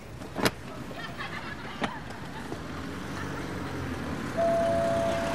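Two sharp clicks a little over a second apart, then a fainter one, as the handle and latch of a locked front door are tried, over passing street traffic. Near the end two steady held tones come in.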